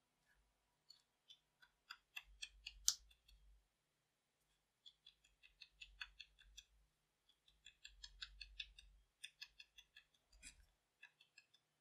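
Faint runs of soft, sticky clicks and taps, several a second, as the chisel tip of a scented marker is dabbed again and again into clear slime. The clicks come in bursts with short pauses between them.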